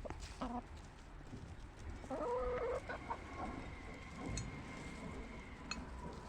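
Backyard hens clucking softly in short, quiet calls, the clearest a little over two seconds in.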